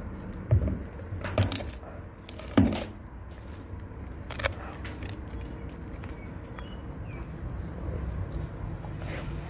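A dog chewing a whole raw fish: wet crunching with a few sharp cracks from the bones, strongest in the first five seconds.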